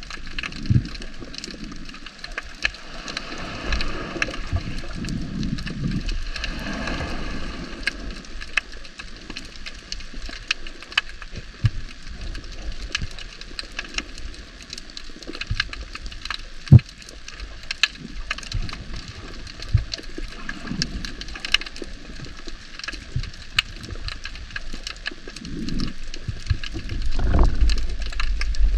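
Underwater sound through a diving camera's housing: a steady crackle of many small sharp clicks over low water movement. There is one much louder single click a little past the middle, and the low rumble of water swells near the end.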